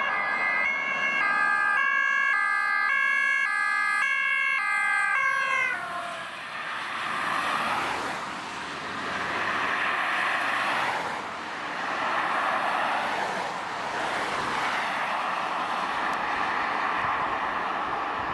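Emergency vehicle's two-tone siren alternating high and low notes, sliding down in pitch and fading about six seconds in as the vehicle passes. Then the tyre and engine noise of passing cars swells and fades several times.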